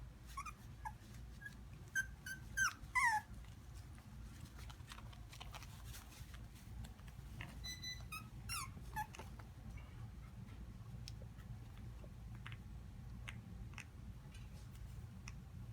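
Havanese puppies whimpering and yipping in short, falling cries, a cluster in the first three seconds and another about eight seconds in, followed by a few faint clicks.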